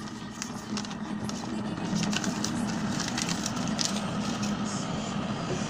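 Paper instruction leaflet crackling and rustling as it is handled and unfolded, over a steady low hum.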